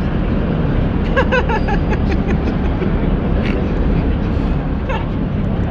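Steady din of a busy exhibition hall: crowd chatter and hall rumble, with a few voices briefly standing out.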